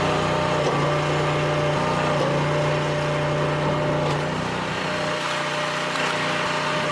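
Commercial hydraulic log splitter running steadily, its engine and hydraulic pump giving a constant hum while the ram pushes a log through the splitting blades.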